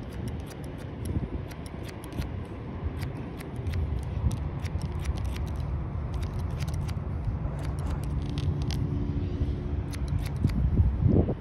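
Barber's scissors snipping hair in a scissors-over-comb cut: a rapid, irregular run of many short crisp snips. Underneath is a steady low rumble, with a faint hum joining about eight seconds in.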